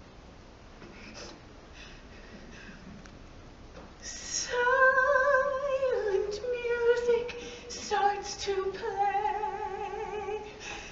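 A woman's singing voice in a live stage-musical performance. After about four seconds of faint quiet, she sings slow, held notes with a strong vibrato, stepping from one pitch to the next.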